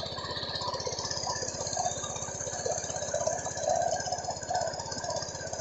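A small engine running steadily, with a rapid, even pulse and some rattle.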